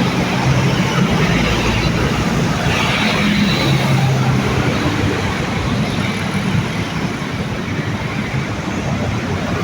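Road traffic passing on a main road: the steady engine rumble and tyre noise of buses and other vehicles going by.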